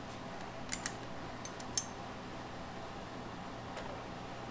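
A few light metallic clicks from a ratcheting wrench being worked on a fastener on a Keihin CVK motorcycle carburetor: a pair of clicks about a second in and a small cluster near two seconds. Underneath runs a steady low hum.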